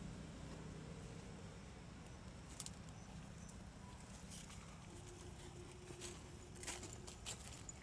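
Faint rustling and a few soft clicks as a baby monkey moves over dry leaves and twigs, over a low steady hum.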